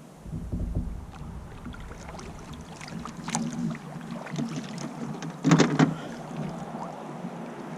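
Kayak paddling: a paddle dipping and splashing in the water, with a few sharper splashes or knocks, the loudest about five and a half seconds in.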